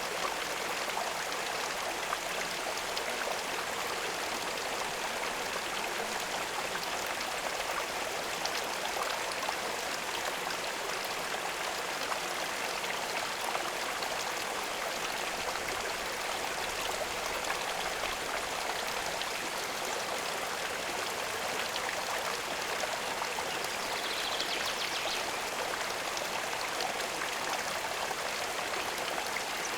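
Running water flowing steadily, an even rushing and trickling like a small stream or outflow.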